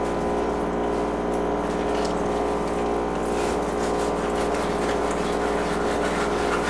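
Steady hum of a running motor or appliance, with faint scraping as a knife works the skin off a striped bass fillet.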